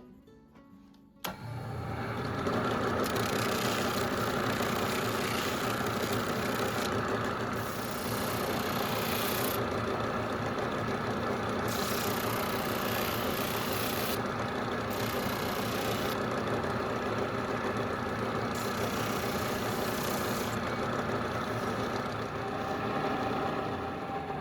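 An electric power tool's motor starts about a second in and runs steadily, with a high hiss that comes and goes every second or two.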